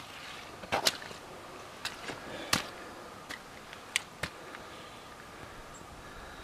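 Footsteps on a rocky forest trail: a few irregular, sharp steps and scuffs of shoes on stone and dirt, spaced out with gaps between them.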